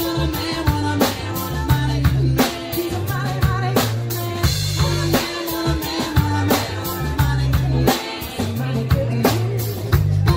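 Live rock band playing: a drum kit keeping a steady beat under a strong bass line, with electric guitar and keyboards, and a woman singing lead.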